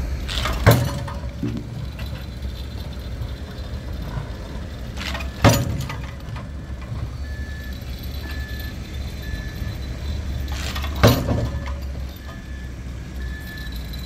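Nippon Sharyo DH608-120M pile driver delivering three heavy hammer blows about five seconds apart, each with a short ringing tail, over the steady rumble of its diesel engine. From about halfway a machine's warning beeper sounds in short repeated beeps.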